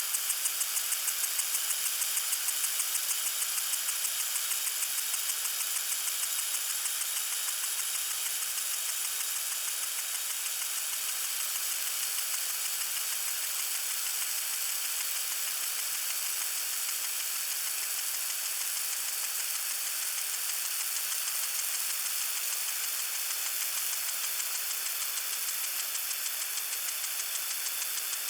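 Lawn sprinkler spraying water: a steady high hiss with a fast, even pulsing running through it.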